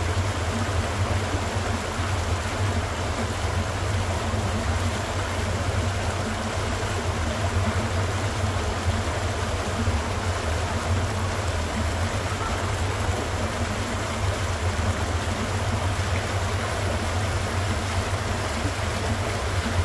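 Water rushing steadily down a narrow concrete channel and pouring into a pool, with a low rumble beneath.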